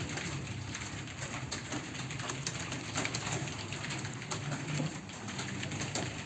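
Computer keyboard being typed on quickly: a fast, irregular patter of key clicks.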